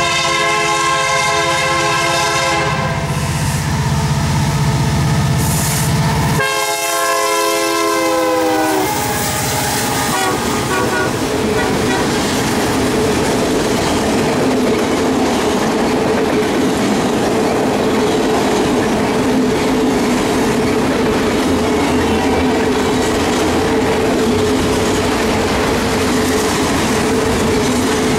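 Diesel locomotive air horn sounding two long blasts, the second sliding down in pitch at its end. After it, the train's cars roll past in a steady rumble of wheels on rails with a steady whine.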